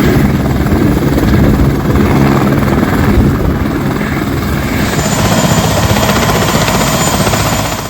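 Helicopter running at close range, a loud steady rotor and turbine noise with rapid blade chop, cut off suddenly at the end.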